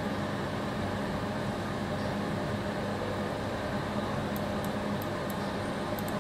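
Steady hum and whir of machine or cooling fans, with a low hum running under it. A few faint light ticks come near the end.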